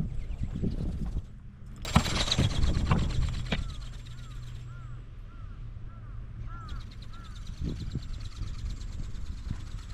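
Strong wind rumbling on the microphone, with the ornithopter's small geared electric motor and flapping wings buzzing in the air. The buzz stops for about two seconds in the middle, as the motor cuts for gliding, then starts again.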